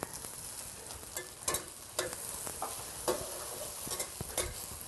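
Diced pressed tofu, shiitake and taro sizzling in hot oil in a stainless steel wok, being stir-fried: a steady sizzle with a metal spatula scraping and striking the pan repeatedly.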